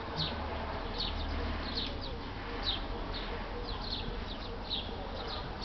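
Small birds chirping: many short, high chirps, each sliding down in pitch, repeated irregularly throughout.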